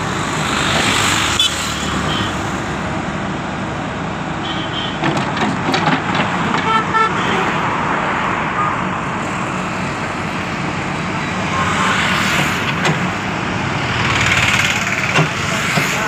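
JCB 3DX backhoe loader's diesel engine running steadily as the backhoe arm swings and digs, with road traffic passing. A vehicle horn sounds a quick run of short beeps about seven seconds in.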